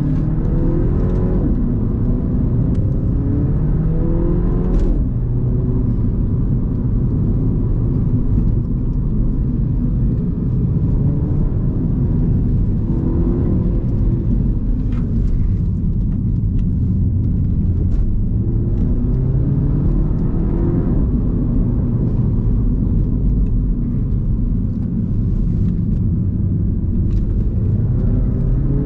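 Mini Cooper S F56's turbocharged four-cylinder engine through its stock exhaust, heard from on board while driving. A steady low drone climbs in pitch under acceleration several times, with a sudden drop at a gear change about five seconds in.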